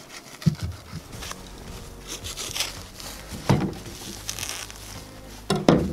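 Plastic stretch film crinkling and tearing as it is cut with a knife and peeled off a slab of pork belly. Three dull knocks stand out: about half a second in, midway, and the loudest near the end.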